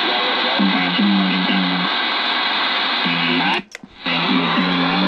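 CB radio receiver hiss with a tune of low, stepping notes coming through on the channel, music played over the frequency. About three and a half seconds in, the signal drops out briefly, with sharp clicks as one transmission ends and another keys up.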